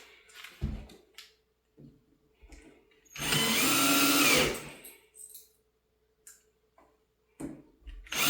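Power drill driving a screw: one run of about a second and a half, about three seconds in, its pitch rising slightly and then dropping as it slows, with a few light knocks before it. A second run starts at the very end.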